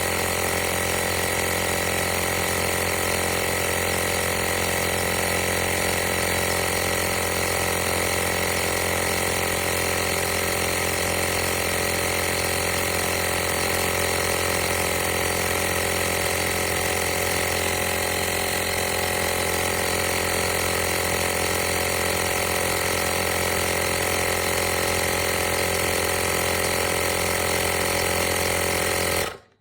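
AstroAI 12 V portable air compressor running steadily with a constant motor hum and pumping noise, then cutting off suddenly near the end.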